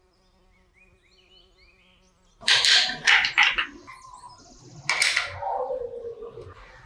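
Combination wrench clinking on the metal mounting nut and bracket while a motorcycle turn signal is tightened on: a quick cluster of sharp metallic clicks, then another single clank about two seconds later.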